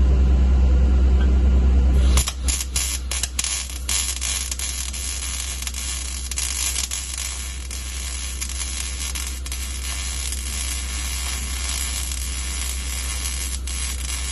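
Electric welding arc crackling and sizzling steadily, striking about two seconds in. Before it there is a loud low hum.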